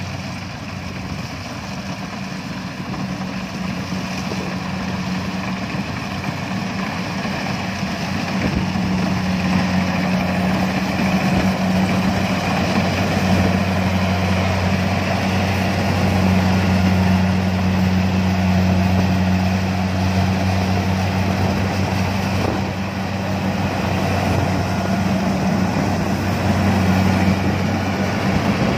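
Kubota DC70 rice combine harvester running steadily as it cuts rice: a continuous diesel engine hum that grows louder over the first half as the machine comes near, then holds.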